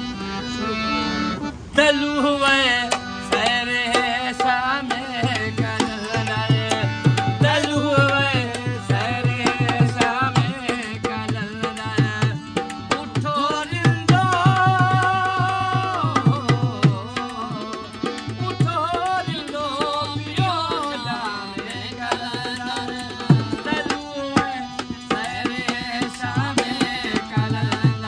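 A harmonium plays held chords, and about two seconds in a man starts singing over it. About five seconds in, a barrel hand drum played with the hands joins in with a steady, driving beat under the voice and harmonium.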